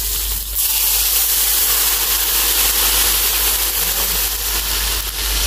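Seasoning frying in a pan of hot oil: a steady, loud sizzle.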